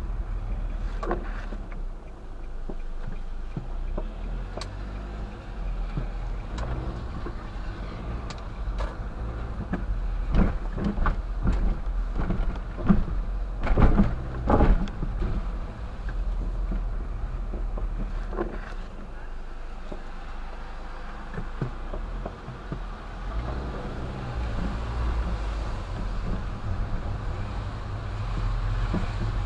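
Inside a car on a wet road: a steady low hum of engine and tyres, with scattered knocks and thumps that come thickest and loudest around the middle.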